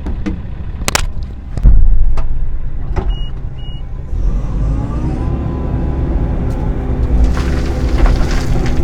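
Midsize excavator's diesel engine running, with sharp knocks in the first few seconds, the loudest about two seconds in, and two short beeps. About four seconds in the engine revs up and holds steady under hydraulic load.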